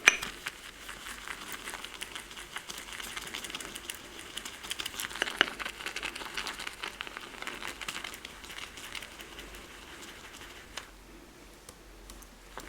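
Damp shaving brush being swirled over a glycerin shaving soap in a mug to load it: a continuous scratchy, crackling rustle of bristles on the soap, easing off in the last couple of seconds. A single sharp knock right at the start.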